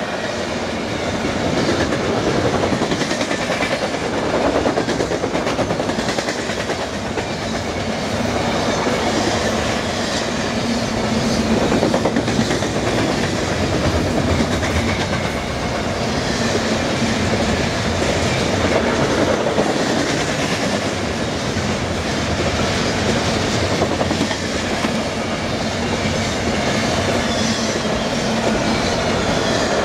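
Double-stack intermodal well cars rolling past at speed: a steady rumble of steel wheels on rail with continuous clicking over the rail joints.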